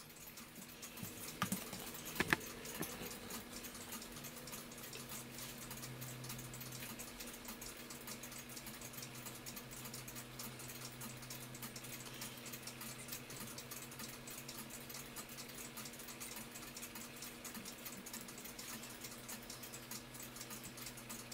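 Faint, quick ticking that runs on steadily over a low hum, with a few sharper clicks about one to two seconds in.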